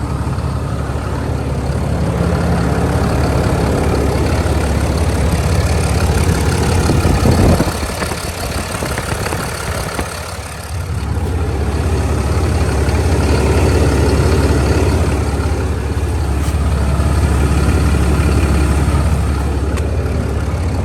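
A 2021 Ram 2500's 6.7-litre Cummins inline-six turbo-diesel idling steadily, a deep low rumble, briefly quieter about eight to eleven seconds in.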